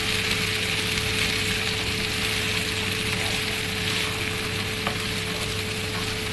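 Diced potatoes sizzling in oil in a nonstick frying pan, giving a steady frying hiss, while a spatula stirs them at the start so they don't stick. A faint steady hum runs underneath.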